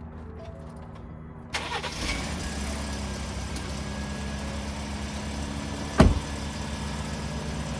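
A 2020 Ford F-150's engine cranks and starts about a second and a half in, then settles into a steady idle. One sharp thump, like a truck door shutting, comes about six seconds in.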